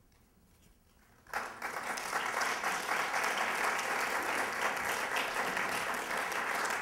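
Audience applauding: after a second or so of quiet, clapping breaks out suddenly and keeps up steadily.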